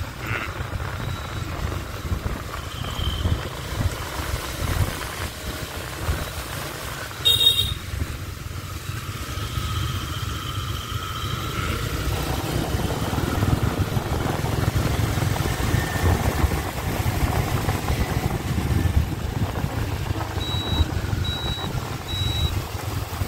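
Riding a motorbike through city traffic: a steady low rumble of engine and road noise. There is a short, sharp, loud sound about seven seconds in, and three short high beeps near the end.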